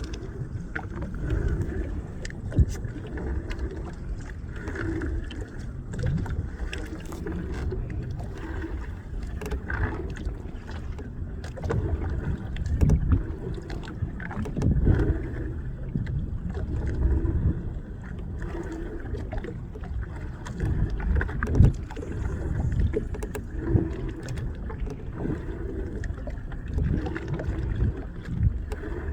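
Small fishing boat at sea: a continuous uneven low rumble of water and wind buffeting the microphone, broken by scattered sharp knocks against the hull.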